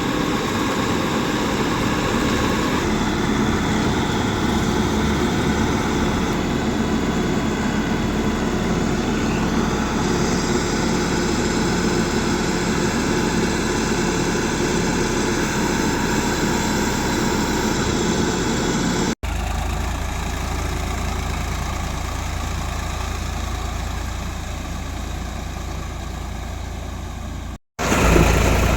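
Heavy diesel engine of farm machinery running steadily. The sound breaks off briefly twice, about 19 seconds in and near the end, and after the first break it has a deeper, stronger low rumble.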